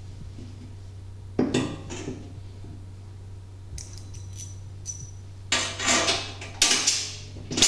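Metal parts clanking as the golf cart rear seat kit's foot plate and vertical support brackets are handled and set in place: a single knock about a second and a half in, a few light ticks, then a run of louder clanks in the last two seconds. A low steady hum lies underneath.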